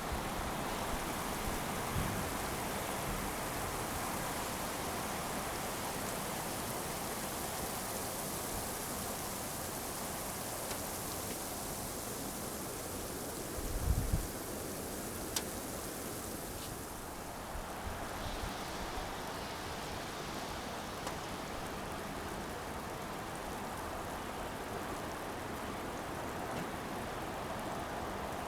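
Steady hiss of storm rain, with a brief low rumble about halfway through; the high part of the hiss thins out a little after that.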